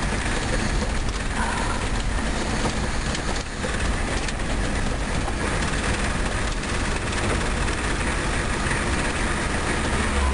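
Steady road and tyre rumble with engine noise inside a car's cabin, driving down a steep, rough mountain road.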